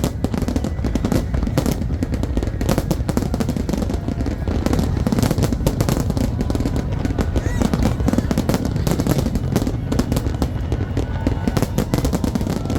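New Year's Eve fireworks display going off continuously: a dense run of sharp bangs and crackles over a steady low rumble of distant bursts.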